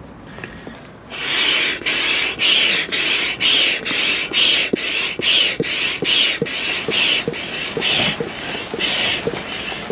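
Hand-operated stirrup air pump inflating an air beam of a Eurohike Air 400 inflatable tent, in about two strokes a second. Each stroke gives a rush of air and a short knock. It starts about a second in.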